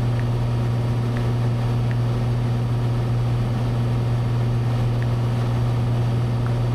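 Cessna 182T's six-cylinder Lycoming IO-540 engine and propeller in a steady cruise drone, heard inside the cabin, with a constant low hum. A few faint ticks sound over it.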